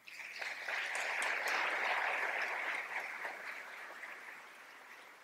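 Congregation applauding, starting at once, at its fullest for the first few seconds, then dying away.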